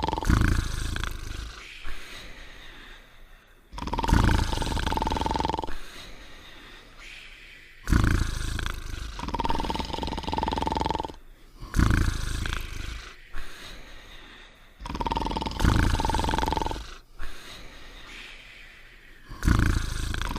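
Two cartoon dogs snoring: loud, rough, rumbling snores about every four seconds, some joined by a high held whistle, the cartoon snore-whistle.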